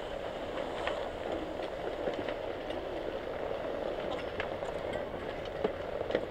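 Skis and poles clacking now and then in a crowded chairlift queue, over a steady rumble, with faint voices.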